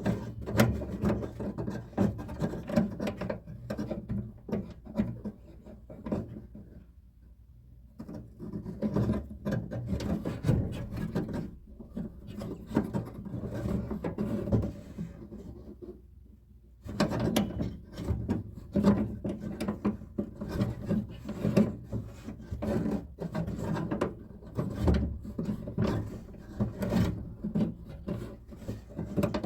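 Hand work on a car door while an outer door handle and lock are fitted: metal parts and tools scraping, rubbing and clicking against the door, with two short pauses.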